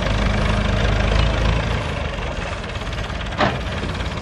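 Massey Ferguson MF 165 tractor's four-cylinder engine running steadily at low revs as it pulls a loaded straw-bale trailer; the low engine note drops slightly a little under two seconds in. A single brief sharp sound cuts through about three and a half seconds in.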